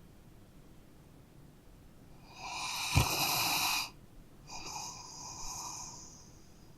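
A sleeping dog snoring: two long, noisy snore breaths a little over half a second apart, the first louder with a sharp click in the middle, the second softer and fading out.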